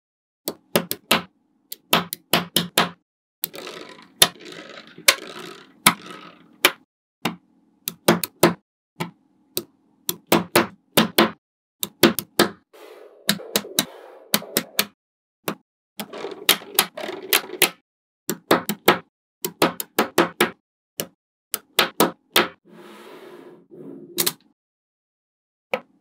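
Small magnet balls clicking and snapping together as blocks of them are pressed into place, sharp clicks in quick clusters with stretches of softer rattling.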